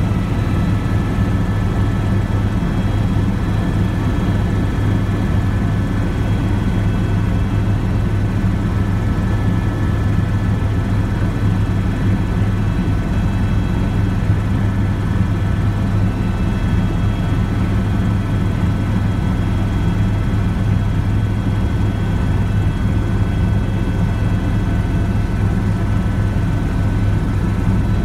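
Helicopter in flight heard from on board: a steady low rotor and engine drone with a faint steady high whine above it.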